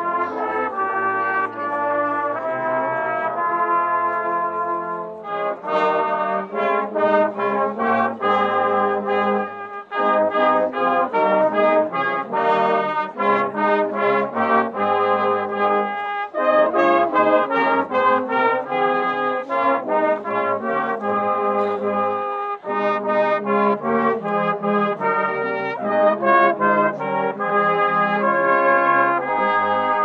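Brass band playing a lively tune: trumpets and trombones carry the melody over a tuba and sousaphone bass line.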